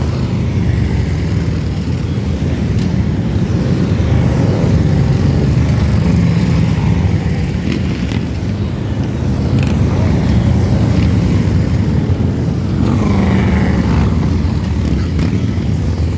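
A procession of cruiser motorcycles riding past in a steady stream, their engines making a continuous low rumble from many bikes at once. Late on, one engine sweeps up and down in pitch as it passes close.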